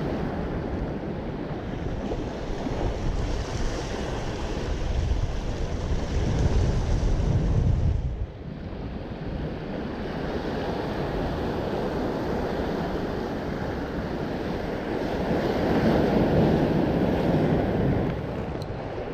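Ocean waves surging and washing against breakwater rocks, with wind buffeting the microphone. One surge builds to a peak and drops off suddenly about eight seconds in, and a second swells up near the end.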